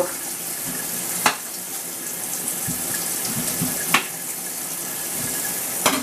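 Kitchen tap running steadily, a continuous rush of water, with three sharp clicks spread through it.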